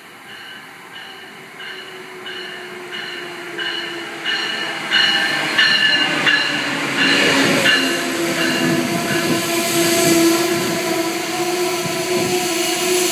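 An Amtrak electric locomotive runs into the station with its bell ringing about every 0.7 s. The bell grows louder as the locomotive nears and stops about eight seconds in. The coaches then roll past with a rising rumble and a steady low whine.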